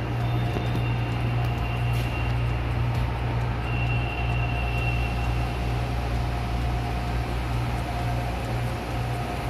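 Steady low mechanical hum with a constant hiss, the drone of a hall's ventilation or air-conditioning running.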